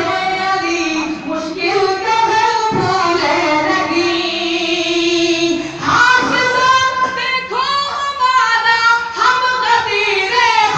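A man singing a devotional poem into a microphone, amplified in a hall. He holds one long note for several seconds before moving into shorter, swooping phrases about six seconds in.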